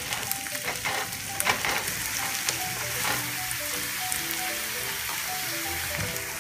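Diced red onion and tart cherries sizzling in butter in a stainless steel skillet, with a spatula scraping and stirring against the pan in the first couple of seconds.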